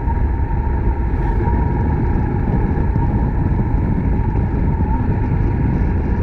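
Suzuki Grass Tracker Big Boy's 250 cc single-cylinder engine running steadily on the move, with road and wind rumble and a steady whine.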